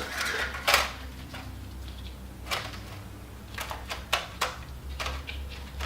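Scattered light clicks and taps of a multi-layer steel head gasket being set onto an engine block and seated over its dowel pins, over a low steady hum.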